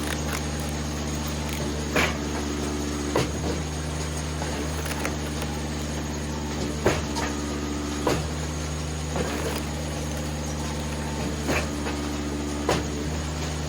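Eastonmade 37D firewood splitter running steadily under its engine's hum, with sharp knocks and cracks every second or two as wood is split and handled on the machine.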